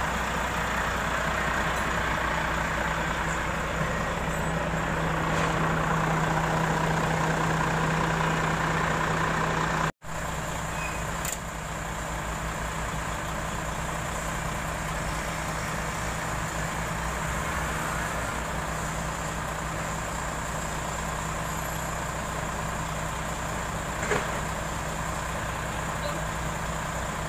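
Diesel engine of a container prime mover idling steadily with a constant low hum. The sound drops out for an instant about ten seconds in.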